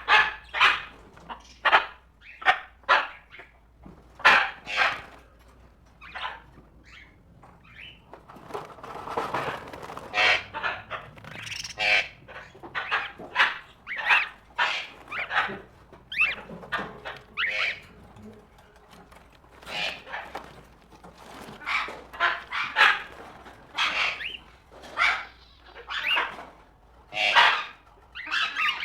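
Tropical birds calling: a dense series of short calls, sometimes several a second, with a somewhat quieter spell about a quarter of the way through.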